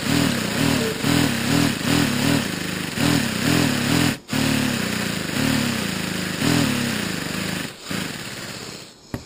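Homemade plexiglass V8 compressed-air engine running, its pitch rising and falling unevenly about twice a second over a steady hiss of air. The sound cuts out briefly about four seconds in, and it fades away near the end.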